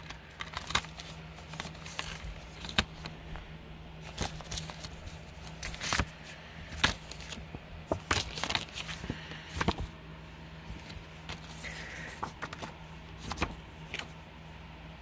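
Plastic Blu-ray case being handled and opened, its paper inserts taken out: irregular clicks and taps of the plastic with some paper rustle, over a faint steady low hum.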